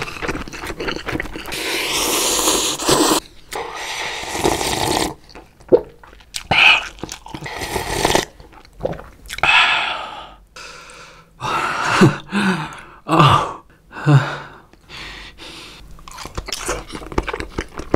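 Close-miked mukbang eating sounds: a long slurp of instant cup-ramen noodles for about the first three seconds, then broth sipped straight from the paper cup in short separate draws, and wet chewing near the end.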